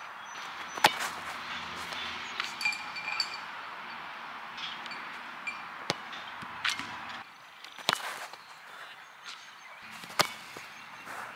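Sharp thuds of a soccer ball being struck on an artificial-turf field: a loud one about a second in, a few fainter ones, and a hard free-kick strike near the end. Under them runs a steady outdoor hiss with a few faint chirps.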